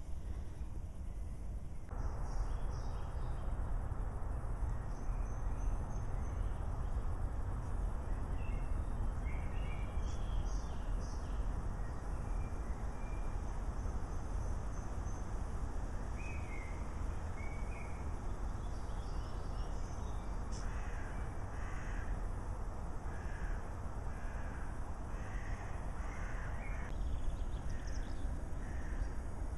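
Birds calling in short, repeated calls, more often in the last third, over a steady low outdoor rumble.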